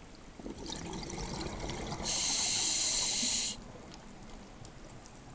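Underwater ambience with a scuba diver breathing through a regulator: a soft watery wash, then a steady hiss lasting about a second and a half, starting about two seconds in.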